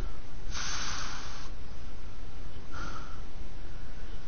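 Heavy breathing of the camera wearer on the move: a long loud breath about half a second in and a shorter one near three seconds, over a steady low rumble on the microphone.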